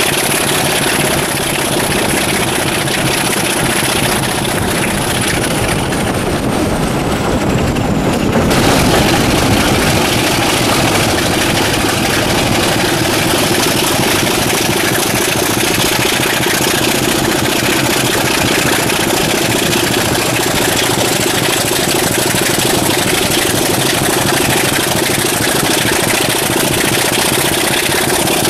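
Class 26 diesel locomotive's Sulzer 6LDA28 six-cylinder engine working under load, heard from an open coach window just behind it. The engine grows louder about eight seconds in and stays strong.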